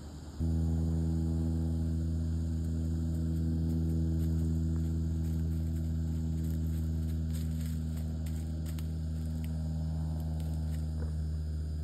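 A steady low hum at one unchanging pitch starts suddenly and holds, with a few faint clicks later on.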